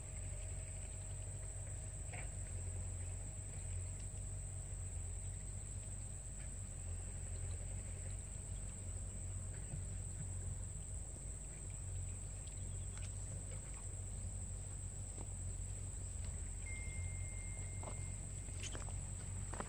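Steady, high-pitched drone of insects chirring around the pond, with a low rumble underneath and a few faint clicks near the end.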